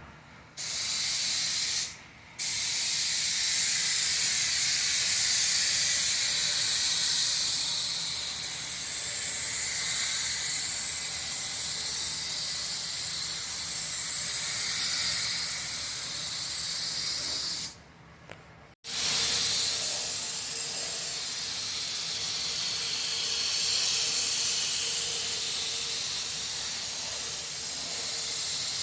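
Compressed-air paint spray gun spraying automotive paint with a steady hiss. The trigger is released briefly about two seconds in and again around eighteen seconds.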